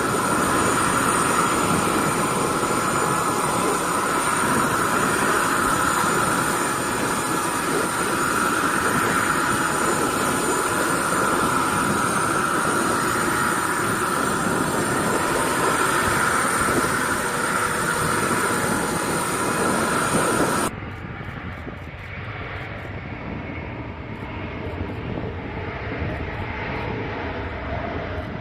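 Turbofan engines of a Lockheed C-5M Super Galaxy running: a steady roar with a high whine. About 21 s in it cuts abruptly to a quieter, duller engine sound.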